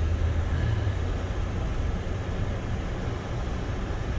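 Car driving on a snow- and slush-covered road: a steady low rumble of tyres and engine with an even noisy hiss over it.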